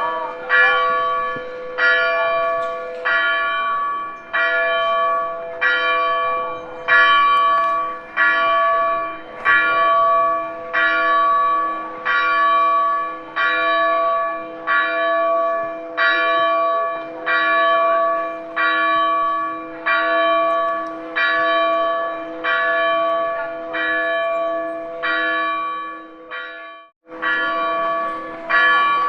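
A single church bell tolling, struck about once a second, each stroke ringing on into the next. The sound cuts out for an instant near the end, then the tolling picks up again.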